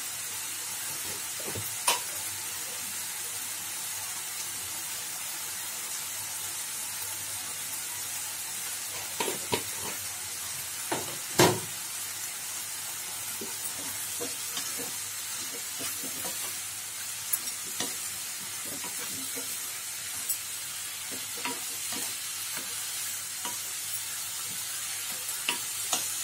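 Chopped mustard greens sizzling in a non-stick kadhai over a gas flame, with a steady hiss as the leaves give off their water. A wooden spatula stirs them, scraping and knocking against the pan now and then, the sharpest knock about halfway through.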